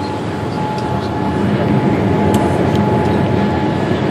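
Boeing 787 cabin noise during the climb after takeoff: the steady rush of jet engines and airflow heard inside the cabin, with a thin steady whine over it. It grows a little louder about a second and a half in.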